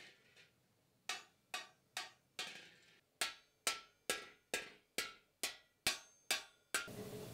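Water-powered trip hammer pounding iron on an anvil: sharp ringing strikes at an even pace of about two a second, with a short break after the first strike. Near the end the strikes stop and a steady rushing noise with a low hum takes over.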